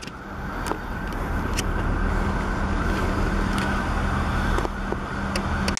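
Class 444 electric multiple unit pulling away from a station: a steady hum from its traction equipment over the rumble of wheels on rail, with a light click about once a second.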